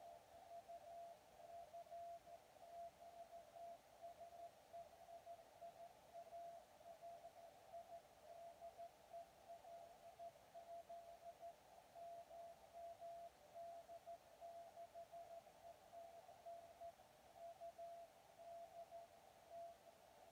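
Weak Morse code (CW) signal from the station LZ1DX calling CQ on the 23 cm band (1296 MHz), heard as one tone of about 700 Hz keyed on and off. It comes through a Kenwood transceiver's 500 Hz filter over a narrow band of receiver hiss.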